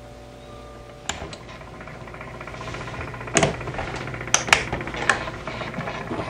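A low steady hum, then from about a second in a lure-drying turner being handled. There is a dense mechanical rattle, with sharp plastic clicks and clacks as its control box and curved door are worked, several of them close together near the middle.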